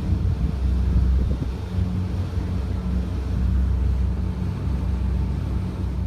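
Boat engine running steadily with a low hum, and wind buffeting the microphone.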